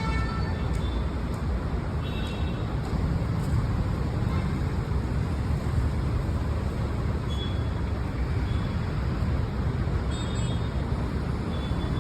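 Steady road traffic noise, a continuous low rumble of passing vehicles, with a few faint, short high-pitched tones scattered through it.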